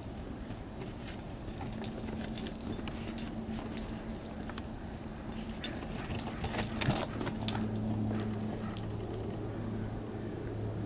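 Basset hound puppy snuffling and padding about in shallow snow, with scattered light clicks and crunches. A steady low hum comes in about two seconds in and grows deeper later on.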